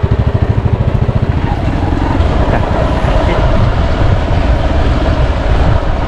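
A vehicle engine running loud and close, with a fast, even low pulsing for about the first second and a half that gives way to a rougher, noisier sound.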